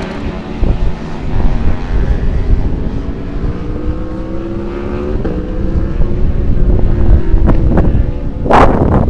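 Aircraft engine running, its pitch rising slowly, under heavy wind buffeting the microphone, with a loud gust of wind about eight and a half seconds in.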